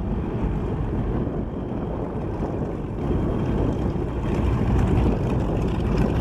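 North American B-25 Mitchell's twin Wright R-2600 radial piston engines running as the bomber taxis past: a steady low rumbling drone that grows louder and brighter from about three seconds in as it turns side-on.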